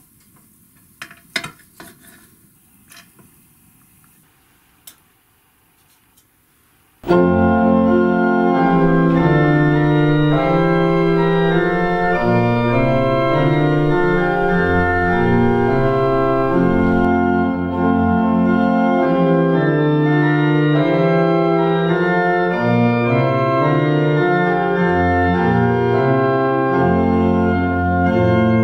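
A few light clicks of a knife and fork on a porcelain plate as a roast is carved, then, about seven seconds in, organ music starts suddenly and plays slow, sustained chords.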